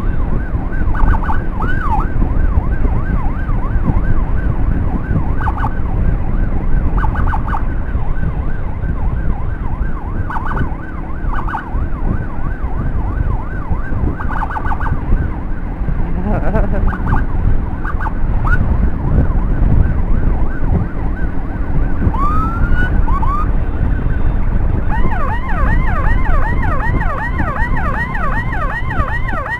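Electronic siren on an escort motorcycle, sounding in short warbling bursts every few seconds, then a single rising whoop, then from about 25 seconds in a fast continuous yelp. It sits over steady wind and engine noise from riding.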